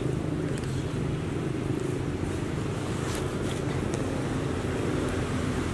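Steady low rumble of a motor vehicle engine running nearby, with a few faint clicks about three seconds in.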